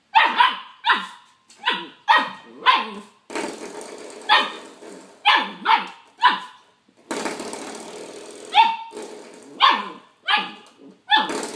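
A puppy barking over and over at a door stop, about fourteen short sharp barks, roughly one every half second to a second.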